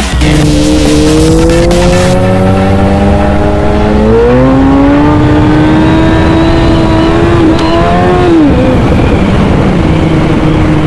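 Suzuki Hayabusa's inline-four engine, breathing through a K&N air filter, pulling hard under acceleration. Its note climbs steadily for about eight seconds, then drops as the throttle closes and settles to an even tone near the end.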